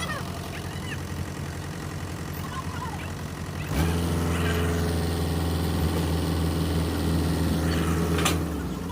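Backhoe loader's diesel engine running steadily, then growing louder about four seconds in and holding there. A short knock near the end.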